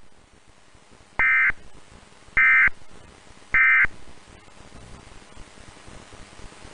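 Emergency Alert System end-of-message tones: three short, identical bursts of the warbling digital data signal, about a second apart, marking the close of the alert. After them, only a low hiss.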